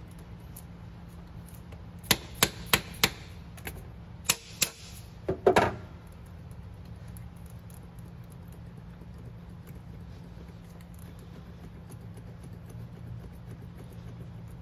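A doweled camshaft end cap on a GM LNF cylinder head being tapped back and forth to unseat it. There are four quick sharp taps about two seconds in, a few more around four and a half seconds, and a louder cluster near five and a half seconds. A low steady hum runs underneath.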